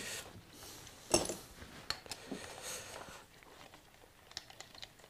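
Small metal clicks and clinks of a hand tool working at the cam caps of a motorcycle engine's open cylinder head. One sharp click comes about a second in, then a few lighter ticks, and a quick run of ticks near the end.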